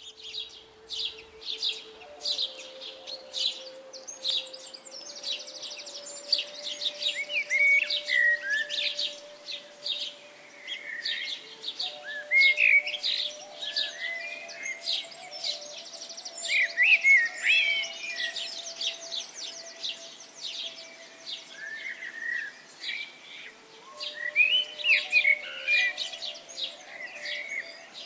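A chorus of small songbirds chirping and singing, with many overlapping quick chirps, trills and warbles. Underneath runs a soft, low sustained drone that shifts pitch a few times.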